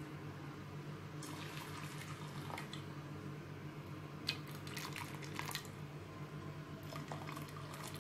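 Faint trickling and dripping of liquid with light clicks, in three short spells, over a steady low hum.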